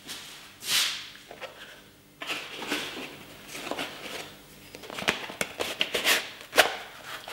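A flexible 3D-printed glove being handled and pulled onto a hand: a swish about a second in, then rubbing and rustling of the soft printed plastic against skin, with a run of sharp clicks and taps in the last couple of seconds.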